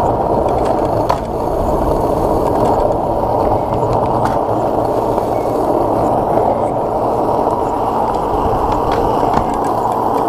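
Skateboard wheels rolling over rough asphalt: a steady, loud grinding rumble, with a few sharp clicks scattered through it.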